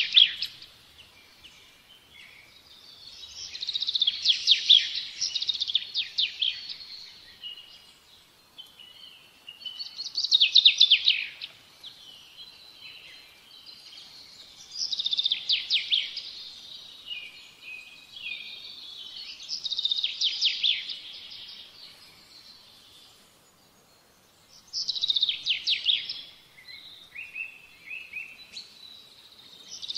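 A songbird singing: loud phrases of rapid trilled notes, each one to three seconds long, repeating about every five seconds, with softer chirps in between.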